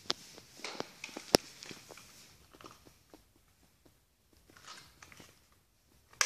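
Handling noise: scattered light plastic clicks and taps as the remote-control transmitter and camera are gripped and moved, with one sharp click about a second in and another right at the end.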